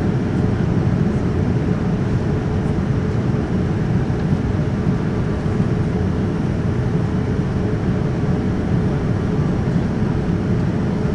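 Steady cabin noise of a Boeing 787-9 in flight, heard from a window seat by the wing: its Rolls-Royce engines and the rushing airflow make an even, low-pitched noise with a faint steady hum.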